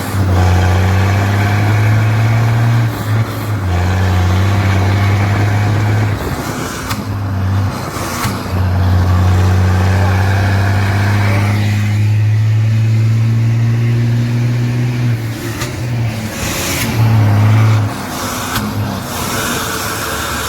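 Loaded truck with a straight-pipe exhaust driving, giving a deep, steady exhaust drone that breaks off briefly several times.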